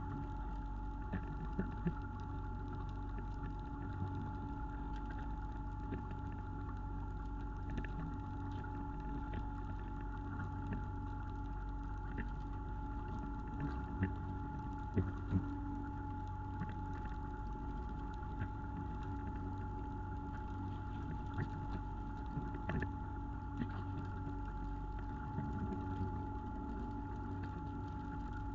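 Fishing boat's engine running with a steady drone and hum, with occasional short knocks on board.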